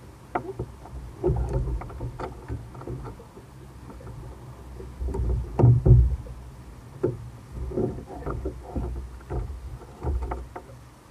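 Water sloshing and slapping against the hull of a Hobie Revolution 16 sit-on-top kayak, with irregular knocks and clunks as the person aboard shifts and handles the fittings behind the seat; the loudest knocks come about six seconds in.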